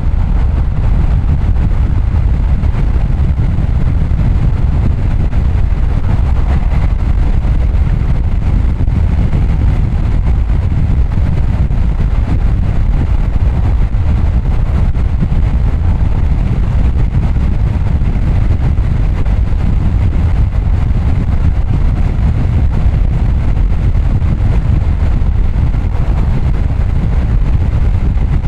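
Car driving at a steady pace: a constant low rumble of tyre, road and engine noise that holds steady with no sudden events.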